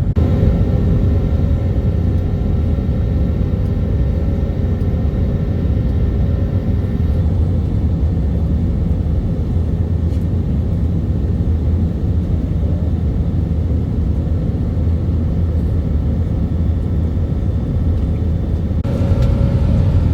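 Steady low rumble of a jet airliner heard from inside the passenger cabin, with a faint steady whine over it that fades out for a long stretch in the middle and returns near the end.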